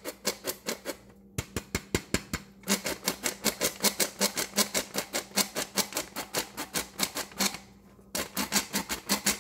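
Old hand sifter clicking rapidly and evenly, about five clicks a second, as it sifts powdered sugar; the clicking stops briefly twice.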